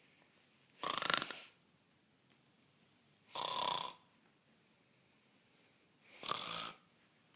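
A person snoring: three loud snores, each about half a second long, coming a little under three seconds apart.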